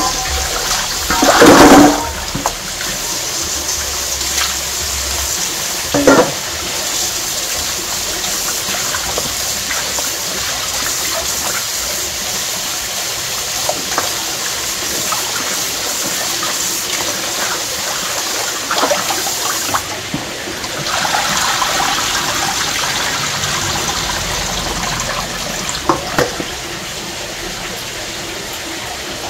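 Water running steadily, with a few knocks and clatters, the loudest about a second and a half in. The flow stops for about a second around twenty seconds in, then runs on.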